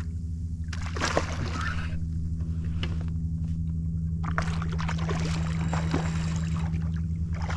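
Water splashing and sloshing against a kayak as a hooked black drum fights at the side of the boat, in irregular spurts, over a steady low hum.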